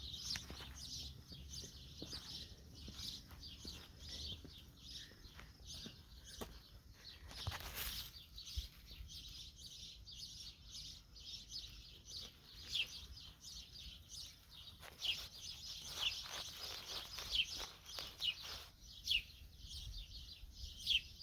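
Small birds chirping: many short, high chirps and quick falling notes, overlapping and irregular.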